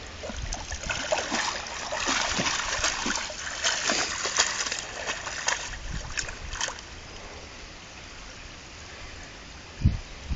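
Irregular splashing as someone moves through shallow stream water for about six seconds, then the quieter rush of the stream, with a single thump near the end.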